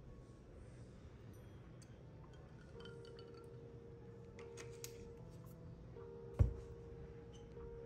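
Faint clinks and crackles of ice cubes in a glass of iced coffee as nut milk is poured in, with one dull thump about six seconds in. Soft background music with held notes.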